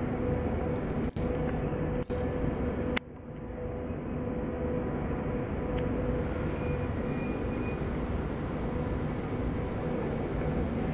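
Steady engine rumble with a constant low hum. There are two brief dropouts in the first two seconds and a sharp click about three seconds in.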